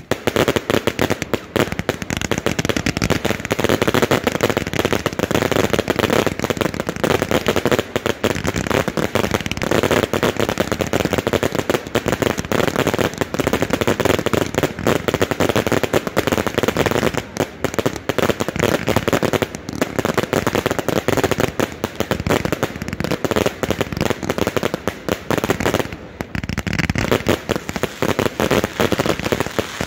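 Fireworks cakes firing a dense, unbroken barrage of rapid bangs and crackles.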